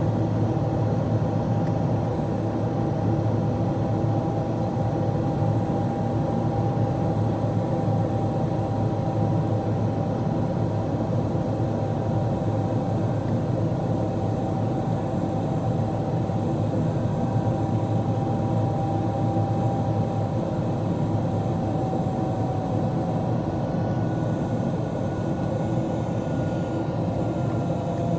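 Cabin noise of a Boeing 777-200LR climbing after takeoff, heard at a window seat: the steady low rush of its General Electric GE90 turbofans and the airflow, with a fan whine that slowly drops in pitch. A fainter, higher whine joins near the end.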